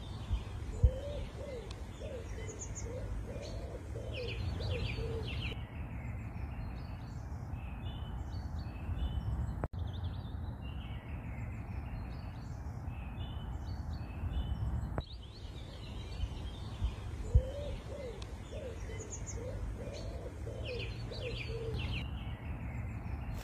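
Birdsong: small birds chirping high and a pigeon cooing a run of low notes, over a steady low rumble. The same stretch of birdsong comes round again about fifteen seconds later, as in a looped ambience track.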